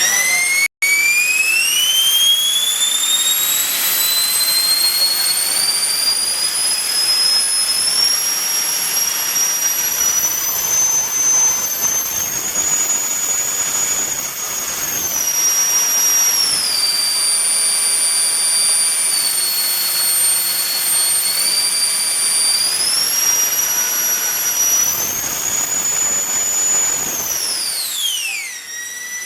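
A 120 mm all-metal electric ducted fan on a 14S battery running at high throttle with a loud, high whine. The pitch climbs over the first several seconds, holds with a few step changes up and down, then falls sharply near the end before starting to rise again.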